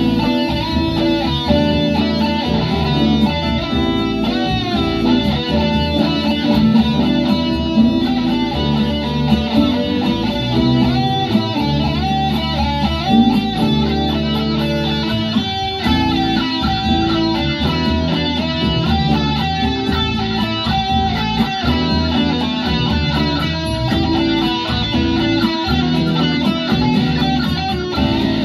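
Sunburst Les Paul-style electric guitar being played, picking a continuous line of notes.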